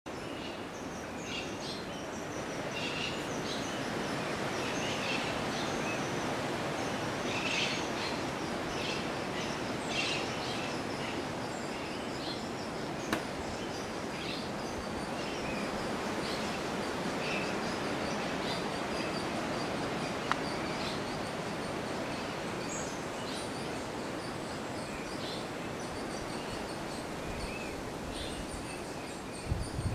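Many birds chirping and calling, short high notes scattered throughout, over a steady rushing background noise. Two brief sharp ticks partway through.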